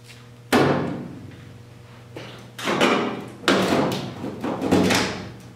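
Steel floor-pan sheet metal being pried and bent by hand with pliers: four loud metallic clangs and rattles, the first about half a second in and the rest in the second half, each dying away quickly, over a steady low hum.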